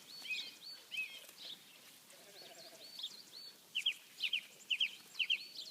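A Hebridean lamb bleating once, faintly, about two seconds in, over songbirds chirping throughout; the loudest sounds are repeated quick double chirps in the second half.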